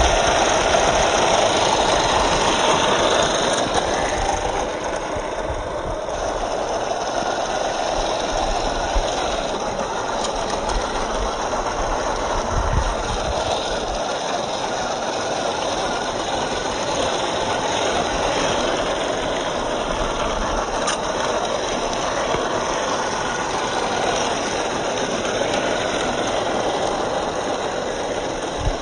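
Small RC crawler truck driving over rocky dirt: its electric motor and drivetrain running steadily, with the tyres rolling and rattling over gravel and a few light knocks.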